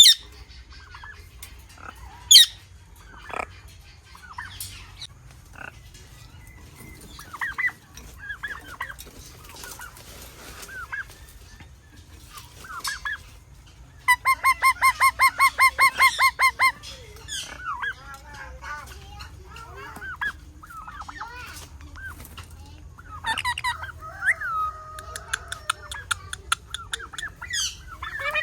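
Parrot calling: scattered short chirps and squawks, with a sharp loud call a couple of seconds in and a fast run of about a dozen repeated calls, roughly four a second, around the middle.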